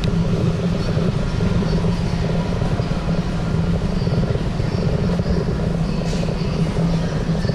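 A steady low rumble with a constant hum, unchanging throughout.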